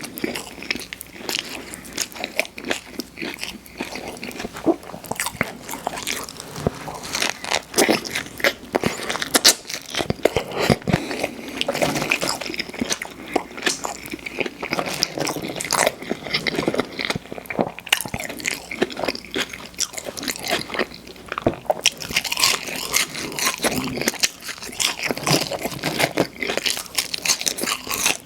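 Close-miked mouth sounds of a person eating fast food: irregular crunchy bites and wet chewing, with frequent sharp crackles.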